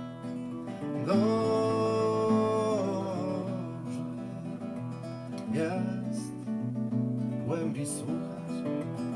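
Acoustic guitar playing, with a held melody line above it whose notes slide up into pitch, starting about a second in and again twice later.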